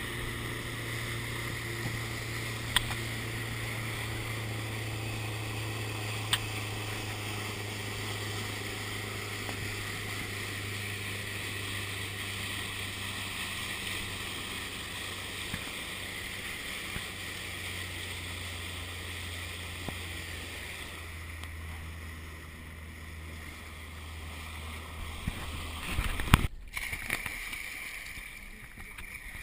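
A Jeanneau Skanes 510's motor running steadily, with water rushing along the hull. The motor's note drops lower about two-thirds of the way through. Near the end there is a heavy splash and churning water as someone dives into the lake.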